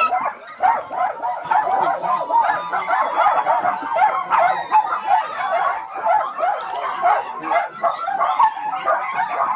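A large pack of small dogs barking and yipping all at once: many overlapping high-pitched barks forming a continuous din.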